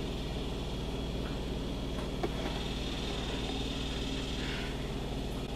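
Steady low hum with a faint high whine over it, and one small click about two seconds in.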